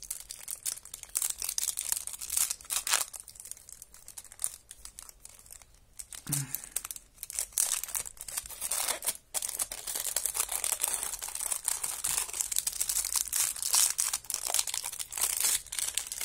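Thin clear plastic bag around a stack of trading cards crinkling and crackling as hands handle it and pull it open, with a short lull about four seconds in.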